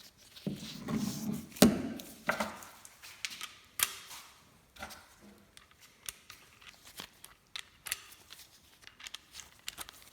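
Irregular clicks, knocks and rustling of someone handling tools and moving about, busiest in the first few seconds and then scattered sharp clicks.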